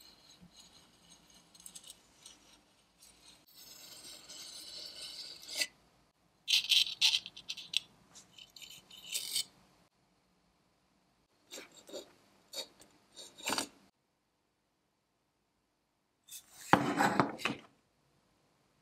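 Tinplate parts of a toy submarine scraping, rubbing and clinking against metal in several short bouts with pauses between them, the loudest near the end.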